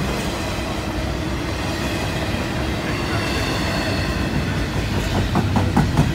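Intermodal freight train rolling past: a steady rumble of steel wheels on rail, with a run of sharp wheel clicks over the rail joints starting near the end.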